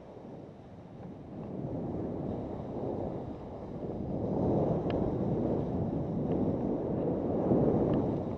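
Wind rushing over the camera's microphone, mixed with skis hissing and scraping over firm spring snow during a fast descent. It gets louder a couple of seconds in as speed builds.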